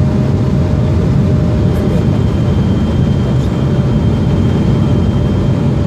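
Steady cabin noise inside an Embraer 175 jet on its descent to land: the rush of its GE CF34 turbofan engines and the airflow, heaviest in the low end, with a faint steady high whine over it.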